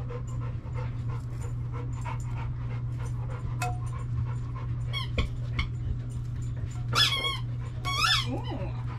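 Dog whining, two high-pitched whines about seven and eight seconds in, the second trailing off into lower wavering whimpers, over a steady low hum and faint crackling of mushrooms being torn apart.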